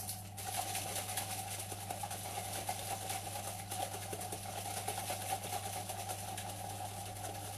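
Milk and a powdered omelette mix being shaken in a closed plastic shaker bottle: a continuous fast sloshing.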